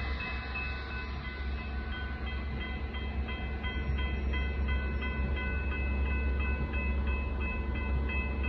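Railroad crossing warning bells ringing continuously, several pitched tones repeating over one another, as the crossing gates lower to signal an approaching train. A steady low rumble runs underneath.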